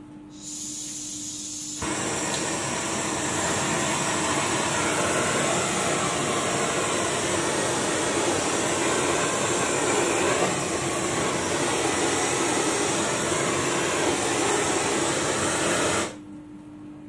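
LPG torch burning through a MAPP-type torch head fed from a gas cylinder: a brief hiss of gas, then the flame catches about two seconds in and burns with a loud, steady rushing noise that cuts off suddenly near the end.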